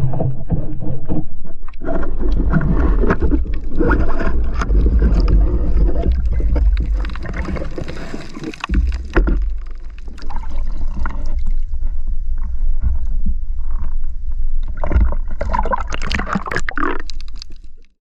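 Water churning and gurgling around an underwater camera, a steady low rumble under irregular splashing noise. It cuts off abruptly near the end.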